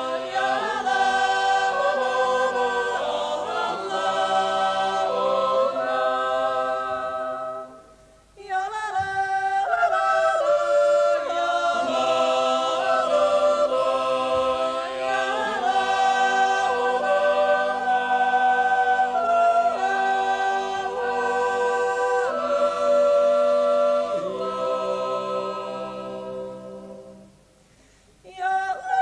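Mixed Swiss yodel choir singing a wordless natural yodel (Naturjutz) a cappella in long held chords. It breaks off briefly about eight seconds in and pauses again near the end before starting anew.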